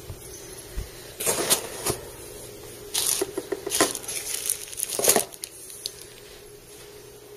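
Bubble wrap and plastic packaging crinkling and rustling in four bursts as a knife is unwrapped, the last about five seconds in.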